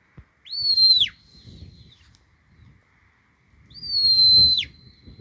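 Two whistled commands to a working sheepdog on a shepherd's whistle, about three seconds apart. Each note rises quickly to a high pitch, holds, then drops away sharply at the end.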